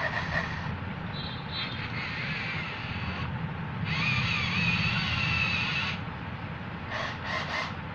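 Small electric gear motors of a homemade wooden RC tractor whirring in spurts as it drives and turns. The whine wavers in pitch and is loudest about four to six seconds in.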